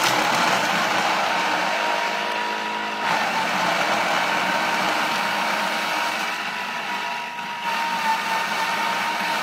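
Thermomix food processor's blade running at speed 6, chopping a full bowl of raw carrot, onion, tomato, zucchini, celery and herbs: a loud, steady motor whir with a high hum over the churning of the pieces.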